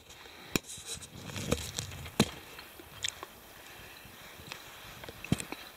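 Someone eating: chewing, with a few scattered sharp clicks and small knocks of food and utensils being handled.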